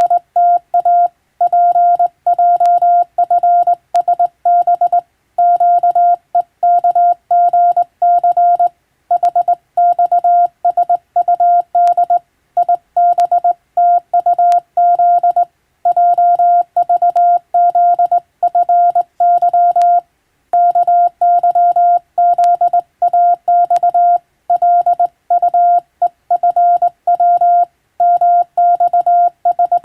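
Morse code (CW) tone keyed on and off in quick dots and dashes, a single steady high beep with brief gaps between words, sending English-language practice telegram text.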